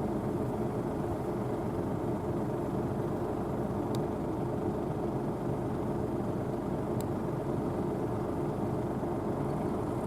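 Rostselmash NIVA SK-5 M1 combine harvester running steadily while harvesting barley, its engine and threshing machinery a steady drone, with two faint clicks about four and seven seconds in.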